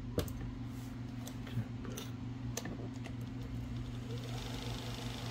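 Scattered light clicks and taps from handling the mechanism of an Olivetti Lettera 36 electric typewriter, over a steady low hum.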